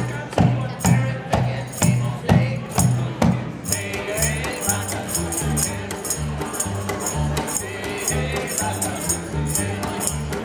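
Live acoustic string band: an upright double bass plucks a steady bass line of about two notes a second under a strummed banjo, with a tambourine jingling on the beat. The plucked attacks are sharpest in the first few seconds.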